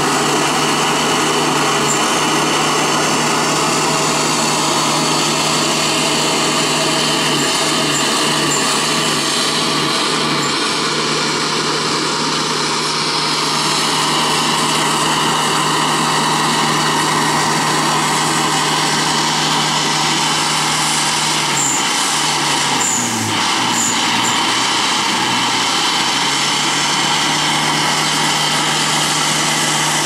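Toyota Hilux pickup's engine held at high revs under load while its tyres spin in mud, clawing up a riverbank. The revs stay steady, dipping briefly a few times.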